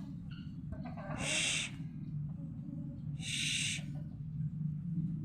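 Two short breathy hissing bursts, about two seconds apart, over a steady low hum.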